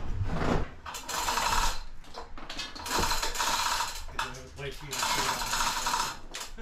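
Manual chain hoist ratcheting in three bursts of rapid clicking, about a second each, as the hand chain is pulled to lift a Chevy 396 big-block engine hanging in chains.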